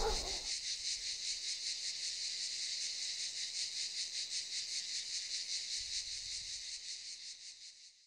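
Cicadas singing in a steady chorus of rapid, evenly pulsed chirring, about five pulses a second, fading out near the end.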